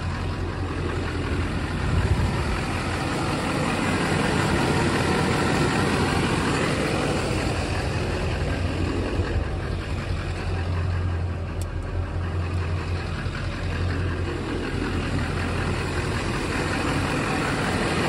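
The 6.6-litre Duramax LB7 turbo-diesel V8 of a 2001 GMC Sierra 2500HD idling steadily.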